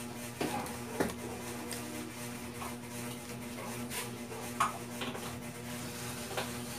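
Mouth sounds of someone eating a steamed siopao bun: soft chewing with a few scattered clicks and smacks, over a steady low hum.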